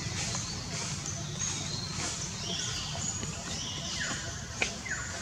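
Short, high chirping calls that slide down in pitch, repeating over a steady low background rumble, with one sharp click a little before the end.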